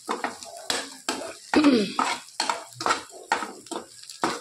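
A spoon clinking and scraping against a pan while stirring spiced roti pieces, in a quick uneven run of knocks and scrapes. The loudest is a scrape about one and a half seconds in that drops in pitch.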